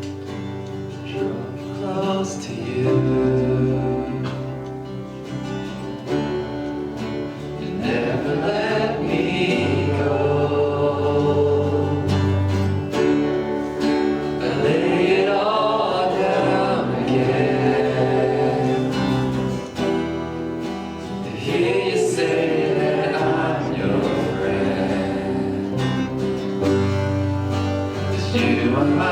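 Congregational worship music: singing over acoustic guitar and a bass line, with held chords underneath.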